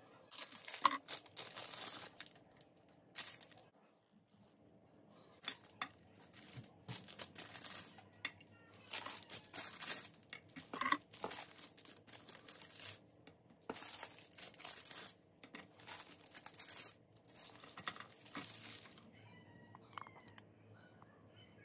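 Ice lolly wrappers being torn open and crinkled in irregular bursts, which stop shortly before the end.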